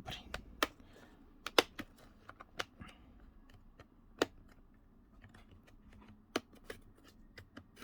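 Irregular light clicks and taps of hands working on a laptop's plastic case, a dozen or so spaced unevenly, with a louder click about a second and a half in and another about four seconds in.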